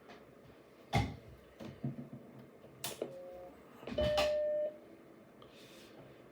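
A sharp click, then about three seconds in a second click with a brief tone, and about four seconds in the Macintosh SE's startup chime: a single steady tone held for under a second as the machine powers on.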